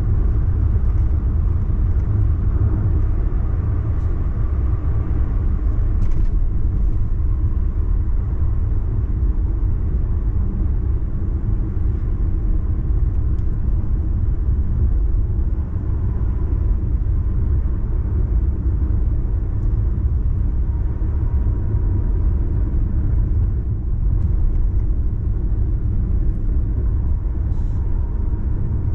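Inside the cabin of a Mercedes-Benz S500 cruising on a highway: a steady low rumble of tyre and road noise.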